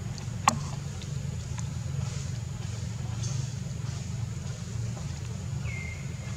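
Outdoor background with a steady low rumble, one sharp click about half a second in, and a short high chirp near the end.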